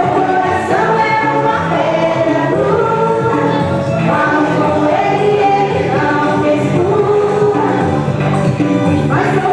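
A woman singing into a handheld microphone over backing music, holding each note for about a second.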